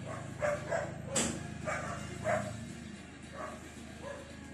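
A dog yipping and barking in a string of short, irregularly spaced calls, with one sharp click about a second in.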